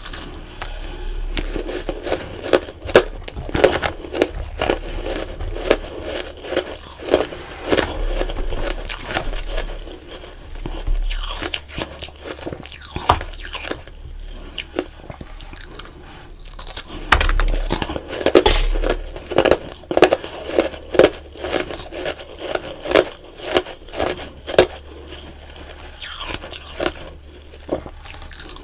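Close-miked biting and chewing of powdery frozen ice: dense, crisp crunches in two long runs of bites, with a quieter stretch of softer chewing between them.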